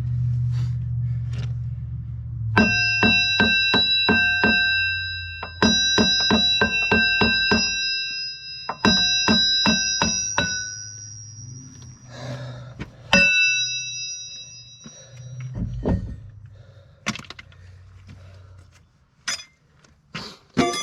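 Rapid hammer blows on a steel undercarriage part, each strike ringing like a bell. The blows come in three quick runs of about four to five a second, then one hard single blow about halfway through, with a few lighter knocks after it. A low engine hum runs underneath for most of the time.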